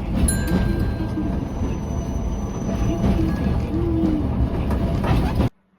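Steady low rumbling noise with faint wavering tones over it, cutting off abruptly near the end.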